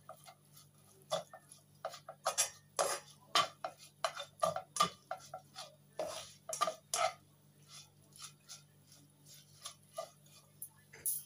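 Plastic slotted spatula scraping and tapping against a non-stick wok as chili paste is stirred: irregular short scrapes and clicks, sparser near the end.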